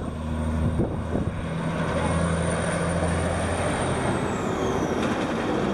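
An engine running with a steady low drone under a wash of outdoor noise.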